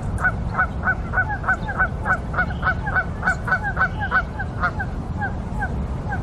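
A bird calling in a rapid series of short, downward-slurred notes, about three a second, slowing and growing fainter near the end, over a steady low rumble.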